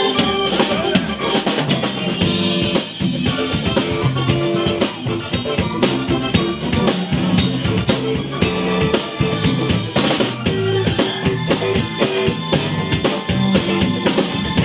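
Live blues band playing, the drum kit prominent with steady snare and bass drum hits, over electric bass, keyboard and electric guitar.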